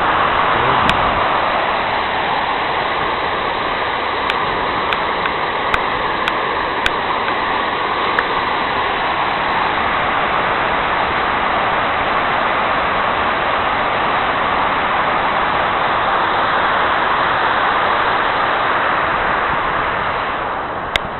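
Steady rush of Skógafoss waterfall's falling water, with a few faint clicks in the first half. It drops in level about a second before the end.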